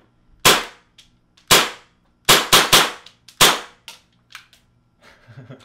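Tokyo Marui Hi-Capa 5.1 Gold Match gas blowback airsoft pistol firing six sharp shots: two single shots, then three in quick succession, then one more, with a few fainter clicks between.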